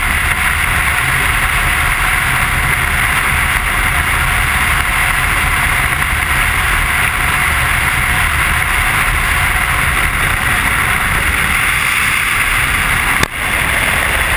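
Steady wind rush with engine and road noise from a motorcycle riding at speed, heard on a camera mounted on the bike. There is a single brief knock near the end as the camera shifts on its mount.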